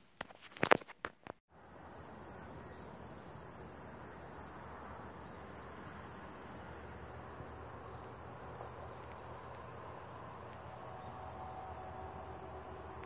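A few sharp clicks in the first second and a half, then a steady high-pitched drone of insects with a low rumble underneath.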